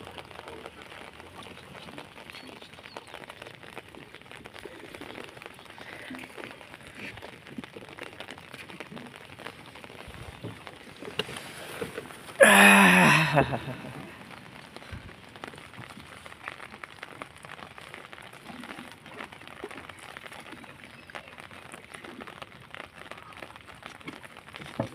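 Steady light rain pattering on an umbrella overhead and on the water. About halfway through, a single loud pitched call drops in pitch over a little more than a second.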